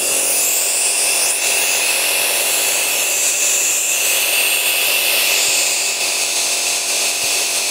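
Compressor nebulizer switched on, its motor and pump running with a steady, loud electric buzz as it makes mist. It starts suddenly.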